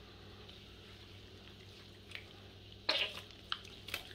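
Knife slicing into a juicy roasted whole chicken: quiet at first, then a short wet crunch about three seconds in and a couple of small clicks near the end.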